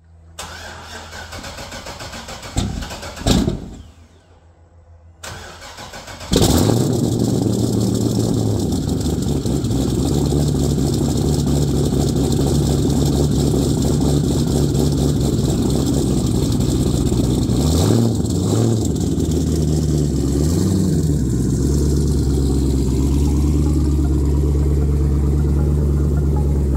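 Twin-turbocharged V8 of a C6 Corvette Z06 firing up about six seconds in, after a couple of short knocks, then idling steadily. The engine is blipped twice in quick succession about two-thirds of the way through.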